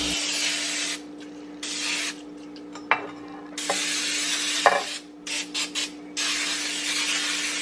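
Aerosol can of PAM cooking spray hissing in a series of bursts, a few of them short, as it coats a glass baking dish.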